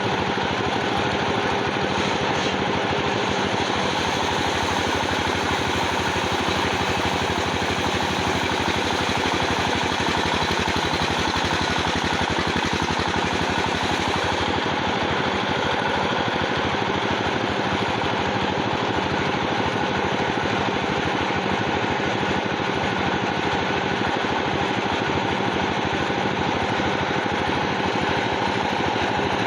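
Sawmill machinery running steadily, an engine-like drone with a fast low pulsing.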